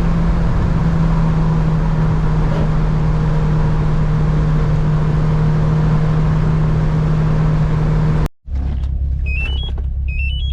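A turbocharged 8th-gen Honda Civic driving with a steady engine drone and road noise. After an abrupt cut about eight seconds in, the engine idles low, and a short rising electronic beep sounds twice near the end.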